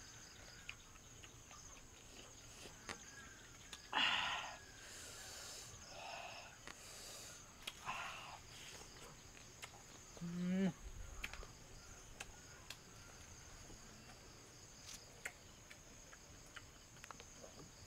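Steady high chirring of night insects, with scattered faint clicks and crunching from someone eating small whole crabs with a spoon and fingers. A louder mouth noise comes about four seconds in, and a short hum rising in pitch about ten seconds in.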